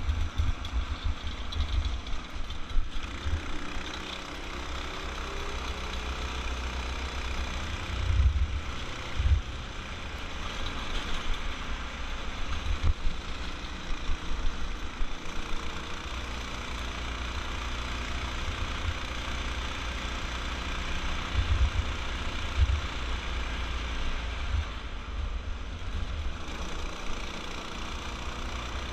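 Off-road go-kart's small engine running steadily under load at speed, driving through a belt-type torque converter. Gusts of wind buffet the helmet microphone now and then as a low rumble.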